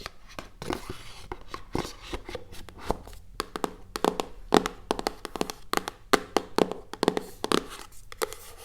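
Fingers tapping and handling objects close to the microphone: a quick, irregular run of light taps and clicks.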